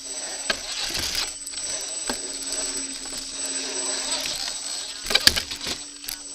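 Onboard sound of a 1/8-scale brushless Redcat rock crawler driving over creek rocks. Its drivetrain whirs with a steady hum that drops out a few times, broken by knocks and clatters of tires and chassis against the rocks. The loudest knock comes about five seconds in.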